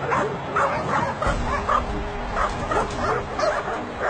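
A dog yipping and whining in short, high-pitched cries, about three a second.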